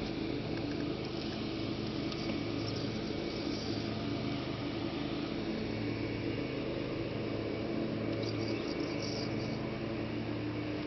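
A steady low motor hum holding one pitch throughout, with a few faint high ticks near the end.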